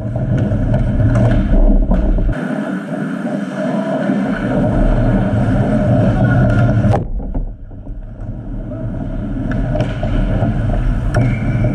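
Ice hockey play at the goal: skates scraping the ice and sticks clicking against the puck and each other, over a steady low rumble. The scraping hiss drops away suddenly about seven seconds in.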